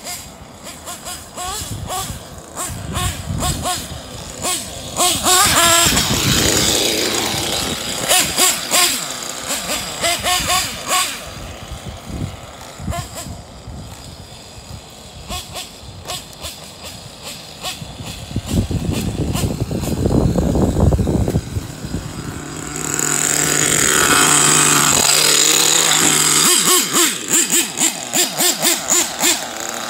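Kyosho Inferno NEO ST 3.0 1/8-scale nitro stadium truck's glow engine revving up and down in bursts as the truck is driven, its pitch rising and falling. It gets louder from a little past two-thirds of the way in.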